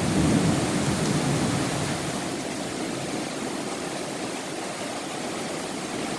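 Steady rain falling in a thunderstorm, with a low thunder rumble dying away over the first couple of seconds.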